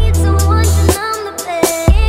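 Background music with a deep bass line, regular drum hits and a melody over them.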